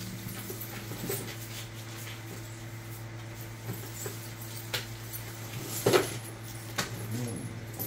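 Costume jewelry being handled and sorted on a table: scattered light clicks and knocks, the loudest about six seconds in, over a steady low hum.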